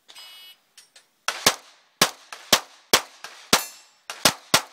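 A shot timer's start beep, then a rapid string of about eight 9mm shots from a Glock 19 pistol, fired in quick pairs and singles, each with a short echo.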